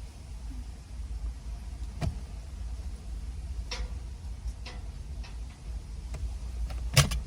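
Scattered light clicks and taps over a steady low rumble, with one sharper click about seven seconds in.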